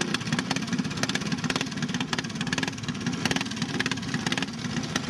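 Small go-kart engine running steadily at a fast, even firing rate.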